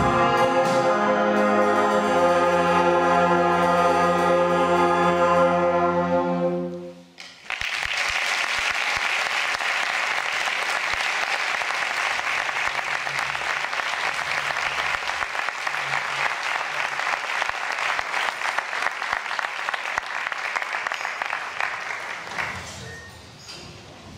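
A student wind band holds a final brass-heavy chord that cuts off about seven seconds in, followed by audience applause that fades out near the end.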